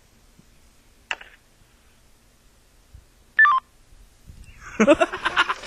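A quiet phone line on hold with a faint click, then a short, loud two-pitch electronic telephone beep about three and a half seconds in. Near the end a person's breathy, noisy voice sound rises.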